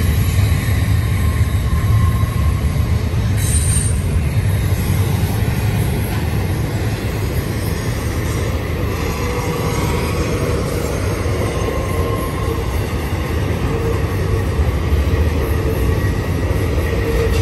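Double-stack intermodal freight train rolling past: a steady heavy rumble of wheels on the rails, with thin, steady wheel squeal from the tight curve running through it.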